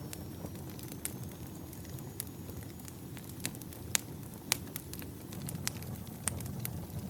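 Campfire of burning firewood crackling: scattered sharp pops and snaps, the loudest a pair about four and four and a half seconds in, over a steady low rumble of flame.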